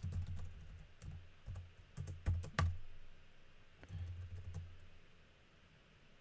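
Keystrokes on a computer keyboard while code is typed and edited: scattered irregular clicks, with two louder strokes about two and a half seconds in. The typing thins out and grows quieter toward the end.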